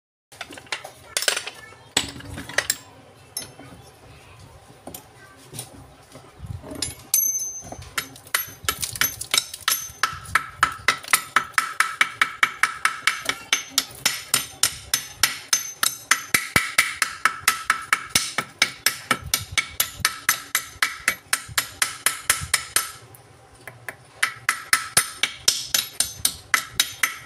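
Rapid metal-on-metal tapping with a bright ring, as a metal tool is struck against the field coil in a Hilti demolition hammer's motor housing held in a vise during a field-coil change. A few separate knocks come first, then a steady run of about four blows a second, broken once briefly near the end.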